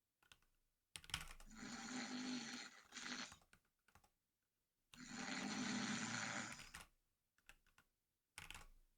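Snoring: slow, heavy breaths, each lasting two to three seconds and coming about every four seconds, with brief clicks in the pauses between them.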